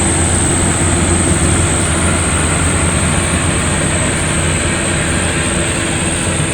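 Rice combine harvester running steadily, its engine and machinery giving a constant low drone with a steady high-pitched whine above it.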